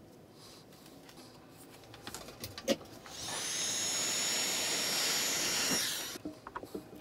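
A heat gun blowing hot air for about three seconds: its fan spins up into a steady rush of air with a high whine, then winds down when it is switched off. A few small clicks of handling come just before.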